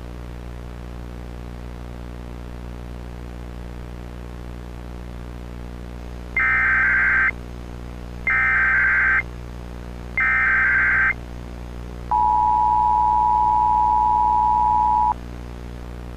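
Emergency Alert System activation over a steady low hum: three short bursts of SAME digital header tones about a second apart, then the two-tone EAS attention signal (853 and 960 Hz together), held steady for about three seconds.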